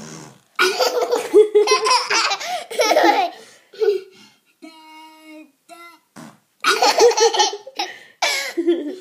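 A young child laughing hard in two long bouts, with a few short high-pitched vocal calls between them.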